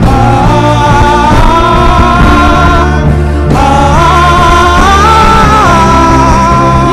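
Loud music with a singing voice carrying a melody over steady low bass notes.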